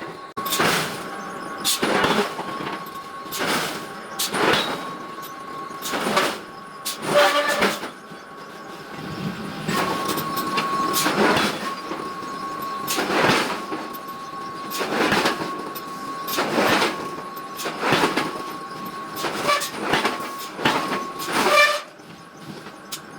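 Heavy hammer blows forging large iron blocks: about fifteen loud metallic strikes at irregular intervals of roughly a second, over a steady high machine hum.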